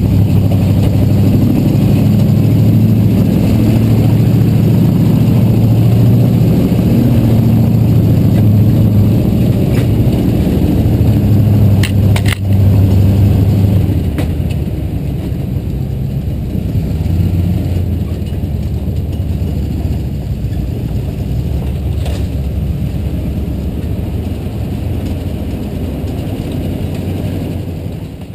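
A 4x4 truck's engine running as it crawls along a rough dirt trail, with a few sharp knocks from the truck over the bumps, the loudest about twelve seconds in. About halfway through the engine eases off and gets quieter.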